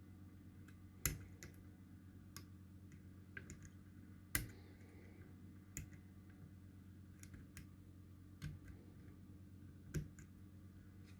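Faint, scattered small clicks and taps from handling electronic components and tools at a circuit board while trying to fit a part's legs into its holes, over a steady low hum.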